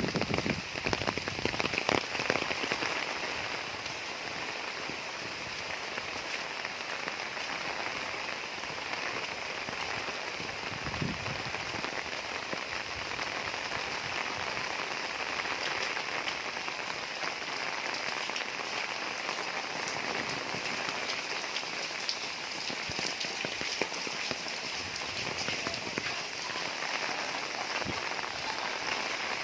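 Heavy rain pouring steadily onto a roof, an even hiss of many drops. In the first couple of seconds it is louder, with deeper rumbling and sharp hits.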